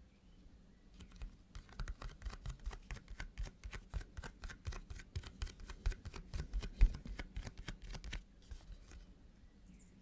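Fingers tapping fast on the holographic cardboard outer sleeve of an eyeshadow palette, several light taps a second with a few louder knocks. The tapping starts about a second in and stops about two seconds before the end.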